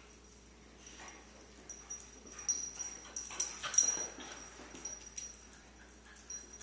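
Dogs play-fighting: scuffling, with short dog whimpers and yips. The loudest cluster of sharp sounds comes around three to four seconds in.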